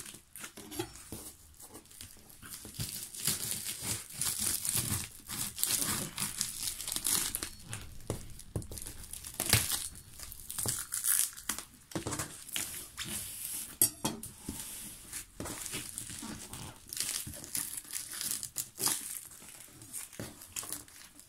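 Parcel packaging being opened by hand: packing tape ripping and plastic wrapping crinkling, irregular rustling with many short sharp clicks.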